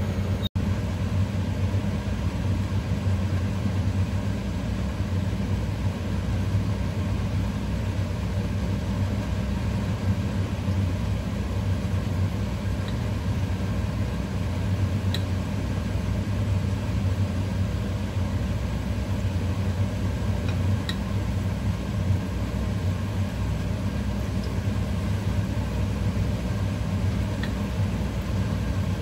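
Steady low electric hum, as of a kitchen exhaust fan or motor, running without change. Over it come a few faint pops from battered cabbage pakoras frying in hot oil.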